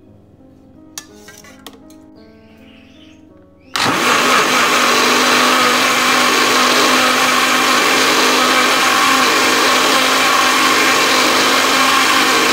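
Countertop blender switched on about four seconds in and running steadily at full speed with a constant hum, puréeing a jar of mushroom and broccoli soup. Before it starts there is only soft background music and a couple of light clinks.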